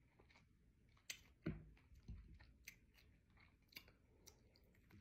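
Faint wet mouth clicks and smacks of someone chewing cherries, with the two loudest clicks a little over a second in.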